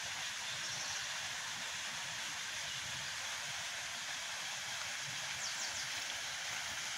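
Steady outdoor ambient noise: an even hiss with no distinct events.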